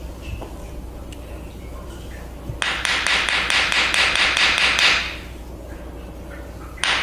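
Percussive hand massage on the back: a run of quick, even slapping strikes that lasts about two and a half seconds, then starts again near the end.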